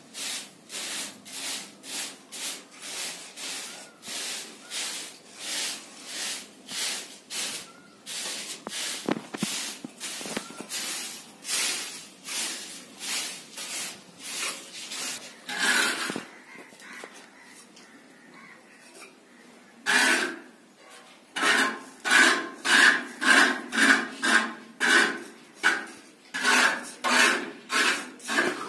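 Small steel plastering tool scraping back and forth over cement plaster as a border moulding is shaped, in regular strokes about one and a half a second. A lull follows a little past halfway, then louder, quicker strokes with a squeaky edge.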